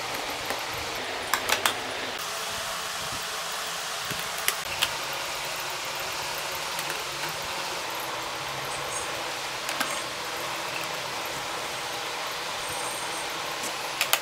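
Makeup palettes clicking and tapping as they are set into a vanity drawer, over a steady hiss: three quick clicks about a second and a half in, two more around four and a half seconds, one near ten seconds and a pair at the end.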